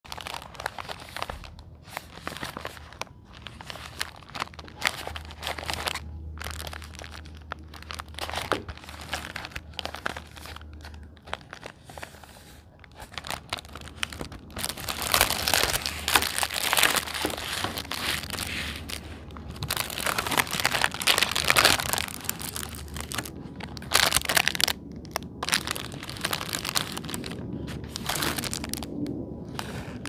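Plastic packaging of a fidget toy set crinkling and tearing as it is unboxed, with irregular rustling and crackling that grows louder and busier about halfway through.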